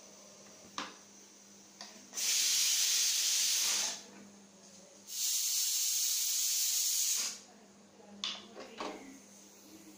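Stovetop pressure cooker letting off steam: two long, loud hissing bursts, each lasting about two seconds. A few light knocks near the end as a cooker is handled.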